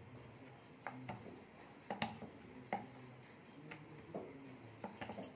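Wooden rolling pin rolling out dough on a round wooden board: a faint rolling rumble with light, irregular wooden knocks as the pin meets the board.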